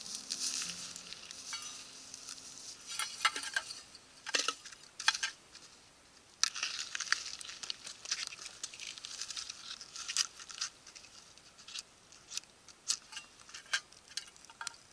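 Dry pine twigs snapping and crackling as they are broken by hand and laid into a Kelly Kettle's fire base for kindling, with rustling as they are handled. The snaps are sharp and come at irregular intervals.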